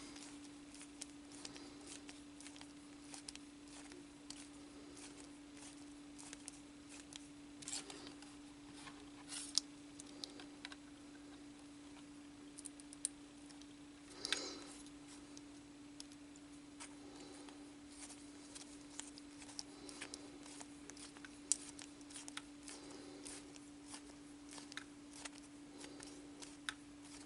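Faint scattered clicks and short scrapes of small screws being driven into plastic model parts with a hand screwdriver, over a steady hum.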